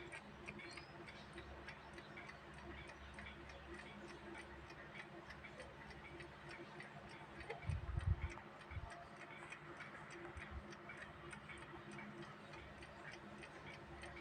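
Vintage mechanical alarm clock ticking steadily and evenly, several ticks a second. A brief cluster of low thumps about eight seconds in stands out as the loudest sound.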